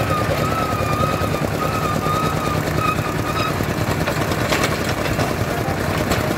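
Small bored-pile drilling rig running steadily under load while its drill rod turns in a flooded, water-fed borehole (wet boring). A thin wavering whine rides over the low mechanical noise for the first three and a half seconds.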